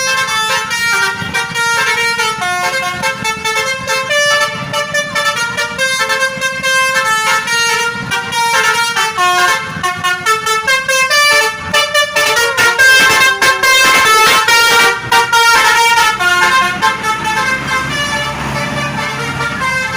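Bus telolet horn playing a long, fast melody of stepping notes, several horn tones sounded one after another without a break. It is loudest about halfway through, with the bus engine rumbling underneath toward the end.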